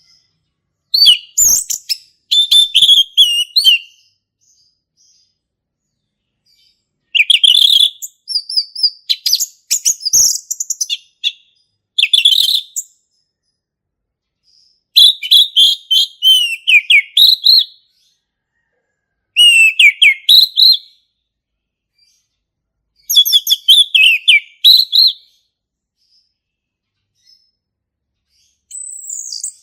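Male orange-headed thrush singing its full, loud song: bursts of rapid, high whistled phrases, each lasting one to four seconds, with short pauses between them.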